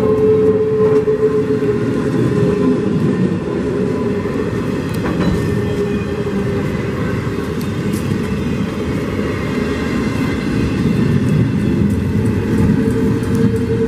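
Norfolk Southern intermodal container train's well cars rolling past, a steady, loud rumble and clatter of wheels on rail with a steady tone running through it.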